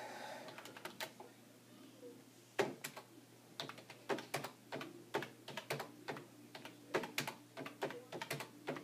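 Typing on a computer keyboard: quick, irregular key clicks in short runs, starting about two and a half seconds in.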